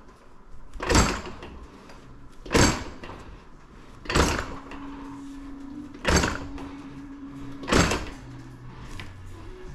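Metal knocks from a .999 silver coin ring being stretched toward a size 16 on the stretching tool: five sharp strikes, one about every second and a half.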